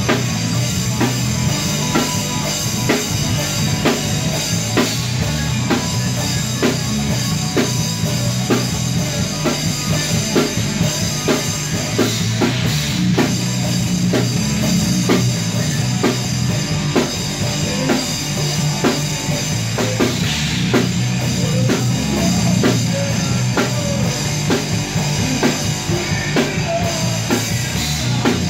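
Heavy metal band playing live: a Ludwig drum kit keeping a steady beat of about two hits a second under electric guitar and bass guitar, with no vocals.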